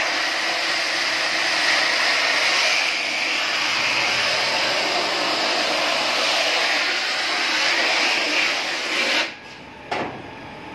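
Handheld high-pressure water spray gun jetting water onto a screen-printing mesh in a washing booth, a steady hiss that cuts off abruptly about nine seconds in as the trigger is released. A single knock follows shortly after.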